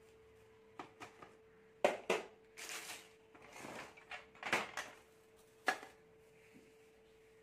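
Handling noises: a few sharp clicks and taps with short spells of rustling in between, as things are picked up and moved by hand. A faint steady hum runs underneath.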